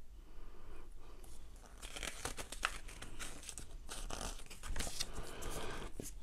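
Paper instruction leaflet rustling and crinkling as it is handled and unfolded, starting about a second in, with many irregular sharp crackles.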